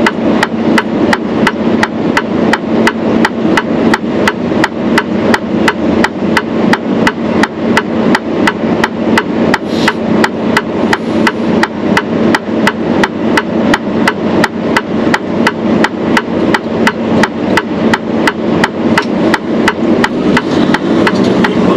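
Heavy truck's turn-signal indicator ticking in the cab, an even click about three times a second, over the steady hum of the diesel engine idling.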